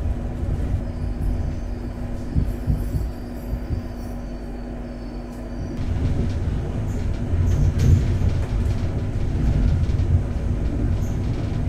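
Passenger train running, heard from inside the carriage: a steady low rumble of wheels on the rails, with a faint high squeal in the first few seconds. The rumble grows louder about halfway through.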